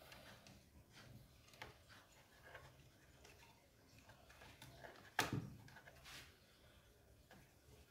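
Near silence broken by faint clicks and knocks of the plastic top cover being handled and fitted onto a Stihl MS 210 chainsaw, with one sharper knock about five seconds in.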